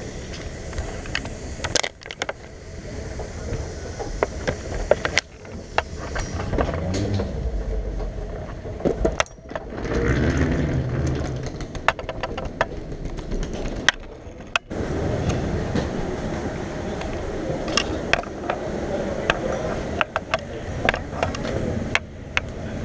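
Travel noise cut together from several short clips, changing abruptly every few seconds: a low vehicle rumble, rolling suitcase wheels and footsteps on hard floors, with many sharp clicks and knocks.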